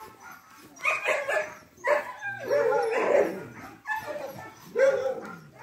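Dogs barking and yipping in short calls, with one longer wavering whine about halfway through.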